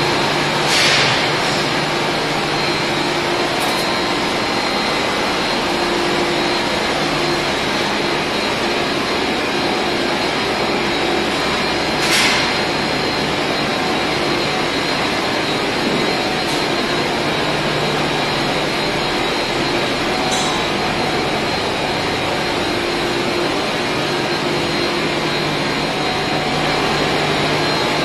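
Motor-driven reciprocating ammonia refrigeration compressors running: a loud, steady machinery drone with a constant hum. Two short hisses stand out, about a second in and about twelve seconds in.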